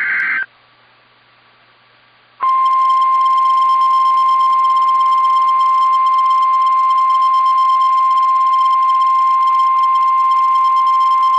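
NOAA Weather Radio's 1050 Hz warning alarm tone, one steady unwavering high tone lasting about nine seconds and cutting off abruptly, played as part of a routine weekly test of the alarm. Just before it, a higher-pitched burst of SAME digital data tones ends about half a second in, followed by a brief hush.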